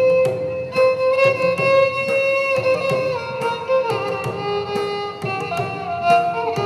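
Violin playing a film-song melody in Carnatic style, with long held notes and sliding ornaments between pitches, over sharp, frequent percussion strokes.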